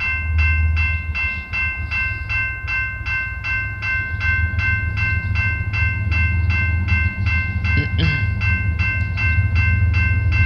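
Railway level-crossing warning bell ringing rapidly and evenly, about four strikes a second, as a train approaches the crossing. A steady low rumble runs underneath.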